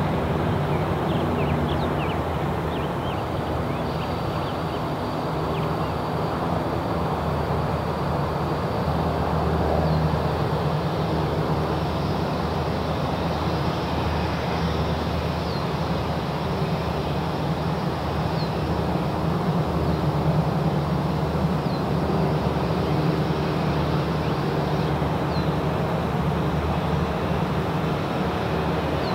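Jet engines of an ANA Boeing 787-8, Rolls-Royce Trent 1000 turbofans, running at takeoff power as the airliner rolls down the runway: a steady, loud jet noise that stays at much the same level throughout.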